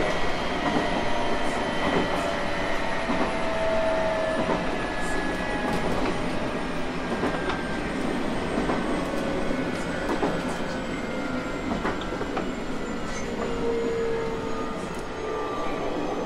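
JR East 719 series electric train running on the rails, heard from on board: steady running noise with scattered wheel-over-rail-joint clicks and a faint whine that slowly falls in pitch as the train slows.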